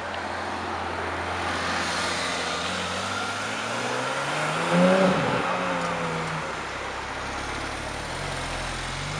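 Porsche 911 flat-six engine accelerating past, its note rising to a peak about five seconds in and then falling away. Near the end, a second 911, a Turbo S, runs at low revs as it rolls by.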